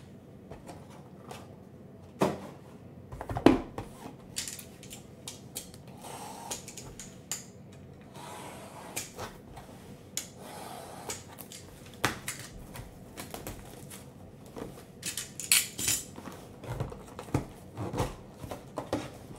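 Cardboard trading-card boxes being handled on a table: scattered sharp clicks and knocks with scraping and rustling, the loudest knock about three and a half seconds in.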